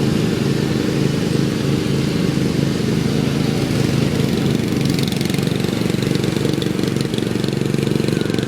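Lawn mower engine running steadily close by.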